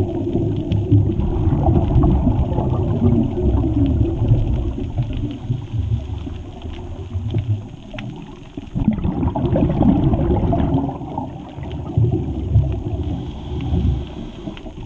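Underwater noise on a scuba dive: a low, muffled rumble with swells of bubbling gurgle every few seconds, typical of a diver's regulator exhaust bubbles.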